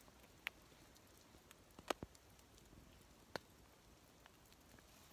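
Near silence broken by four scattered sharp ticks of falling rain and sleet drops, the loudest just under two seconds in.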